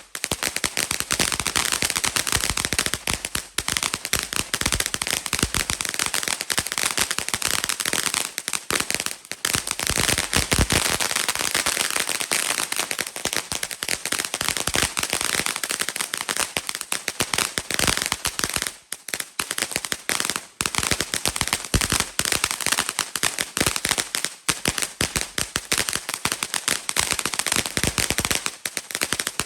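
Firework fountain going off with a dense, continuous crackle of rapid pops, dipping briefly a few times.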